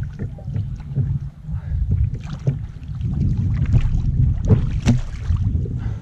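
Water slapping and splashing against a fishing kayak's hull on choppy water, with a steady low rumble of wind on the microphone and scattered sharp knocks.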